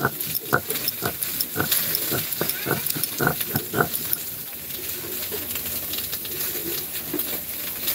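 Food frying in a pan while a spatula stirs and scrapes it: a quick run of scraping strokes, about three a second, over the first half, then mostly the steady sizzle.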